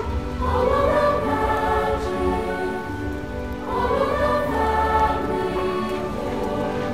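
Background music: a choir singing sustained phrases, with swells about half a second in and again near four seconds in.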